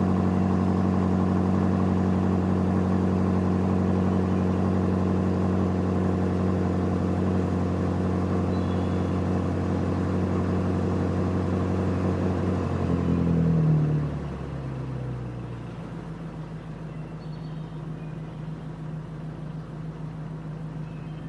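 BMW engine running at a steady speed, swelling briefly about two-thirds of the way in, then dropping to a quieter, steady idle-like hum.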